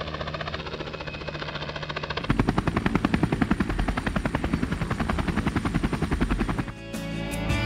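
Helicopter rotor blades beating in a rapid, steady thump, becoming louder and closer about two seconds in. Music takes over near the end.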